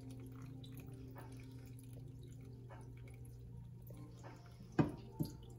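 Dark wort poured in a thin stream from a glass measuring cup onto a bed of grain in a mesh strainer, trickling and dripping through into the pot as the grain is sparged. A steady low hum runs underneath, and two sharp knocks come near the end.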